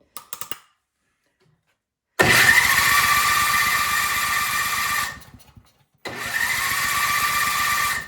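Craftsman snowblower's electric starter cranking the engine twice, about three seconds and then two, with a whine that rises as it spins up and a fast chugging beneath; the engine does not catch and cuts off each time. Small clicks come shortly before the first crank.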